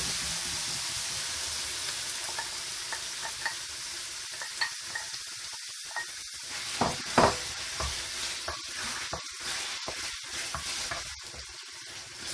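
Minced beef, carrot and onion sizzling in a frying pan as they are stirred with a wooden spoon, with small knocks and scrapes. About halfway through, fried tomato sauce is tipped in from a bowl, and the sizzle grows quieter toward the end.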